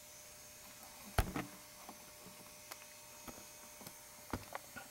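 Faint clicking and knocking from the plastic gears and moving parts of a BMW R90S engine model kit turning over. The loudest knocks come about a second in and again just past four seconds, with a few lighter ticks between, over a faint steady hum.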